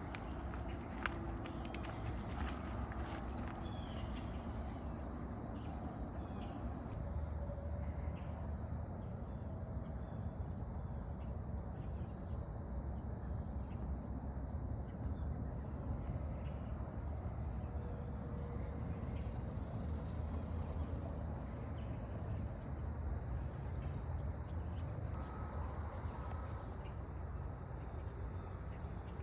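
Insects trilling in a steady high-pitched chorus over a low rumble, with a few faint clicks in the first two seconds.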